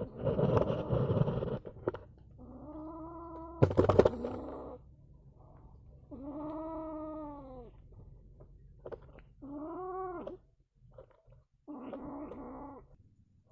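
An angry kitten's harsh, rasping growl, then four separate drawn-out yowls, each rising and falling in pitch. A sharp knock comes about four seconds in.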